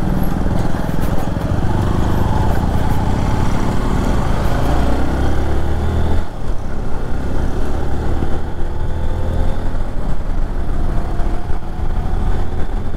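Motorcycle engine running at highway speed, about 75 km/h, under heavy wind blast on a chest-mounted action camera's microphone. The sound is a steady low rumble with a brief dip about halfway through.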